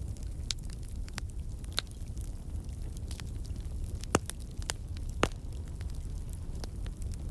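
Campfire burning, with a steady low rumble of the flames under irregular wood crackles and pops; two sharper pops stand out about four and five seconds in.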